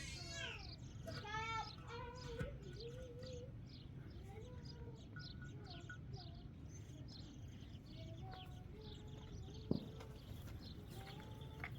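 Small birds chirping in quick, repeated short notes over a steady low rumble, with a couple of louder wavering calls in the first two seconds. A single sharp knock sounds about ten seconds in.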